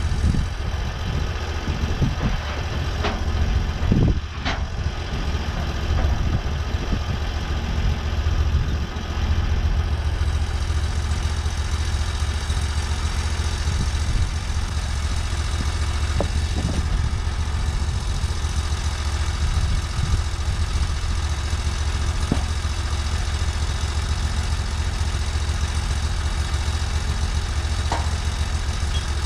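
TimberKing sawmill's engine running steadily, with a few sharp knocks in the first few seconds and another near the end.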